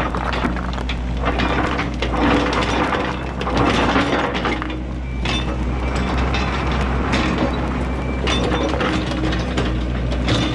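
Yanmar ViO80 mini excavator working: its diesel engine runs with a steady hum under repeated clattering, clanking and scraping as the bucket pounds and drags rock and gravel into the road edge.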